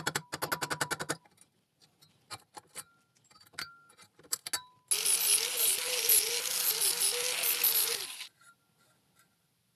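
A quick run of hammer taps on metal at a stainless steel pipe's fresh cut, followed by scattered small metal clicks and brief ringing as pliers work the cut flap. Then about three seconds of an angle grinder running and cutting the steel pipe, stopping near the end.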